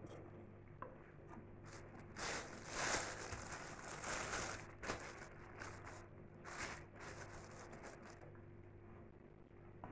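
Person chewing a mouthful of plov (rice pilaf) close to the microphone, with irregular short rustles and a few small clicks over a low steady hum.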